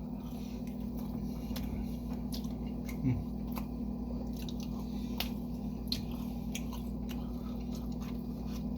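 A person chewing food close to the microphone: small wet clicks and smacks scattered irregularly. A steady low hum runs underneath.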